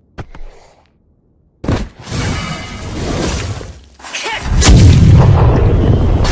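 Anime battle sound effects: a sudden hit about a second and a half in, a rushing whoosh, then a loud impact a little after four seconds that opens into a sustained, deep explosion rumble.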